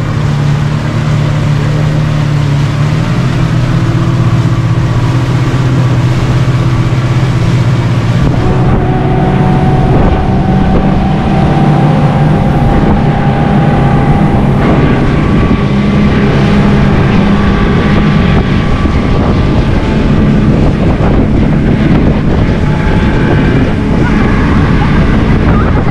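Motorboat engine running, speeding up about eight seconds in, with wind noise on the microphone growing as it goes faster.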